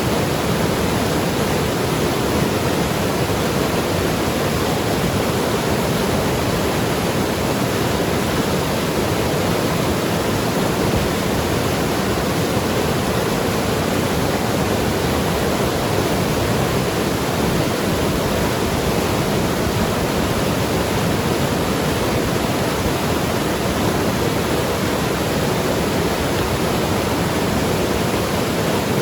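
Mountain river rushing and gurgling over rocks, a steady, even rush of water.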